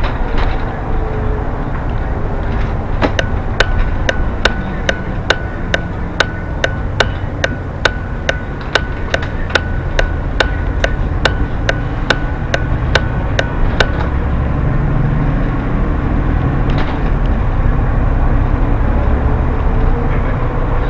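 Bus turn-signal indicator ticking evenly, about two and a half ticks a second, starting about three seconds in and stopping about fourteen seconds in. Under it the bus's engine and tyres rumble steadily, heard from inside the cab.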